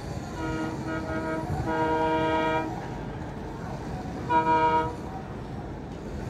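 Train horn sounding three blasts, the second one longer and the last one short and loudest, over the steady noise of city traffic.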